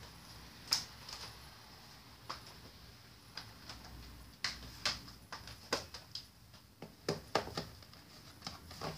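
Handling noise: a string of irregular light clicks and taps, the sharpest about a second in and right at the end, over a faint steady high hiss.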